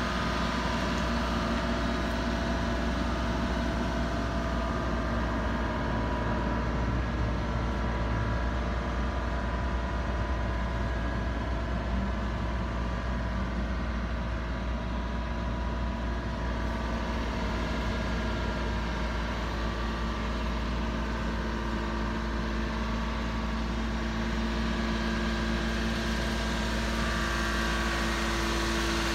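Mitsubishi Minicab kei truck's engine idling steadily.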